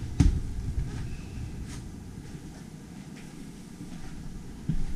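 Footsteps down a few steps inside an RV, with the low rumble of a hand-held camera being carried and a few soft thuds.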